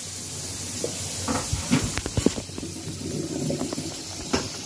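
Steady hiss of food cooking on the stove, with several sharp knocks and rustles from the phone being grabbed and moved, mostly in the middle and once more near the end.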